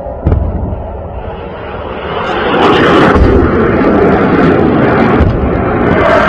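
Rocket fire overhead: a couple of sharp booms, then from about two and a half seconds in a loud rushing roar of a rocket motor in flight for a few seconds, with low thuds. An air-raid siren's wail rises again near the end.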